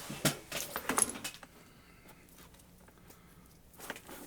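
Light clicking and rattling of rotary-tool flex shafts and parts being handled, bunched in the first second and a half, then a few faint clicks near the end.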